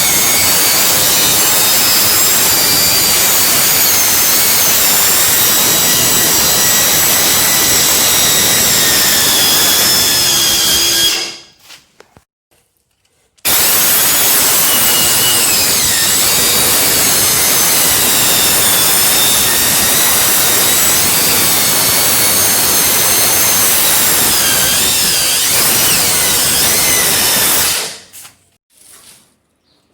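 A handheld power tool, likely used on masonry, runs loud and steady with a high whine in two long stretches. It stops about eleven seconds in, starts again about two seconds later, and stops again near the end.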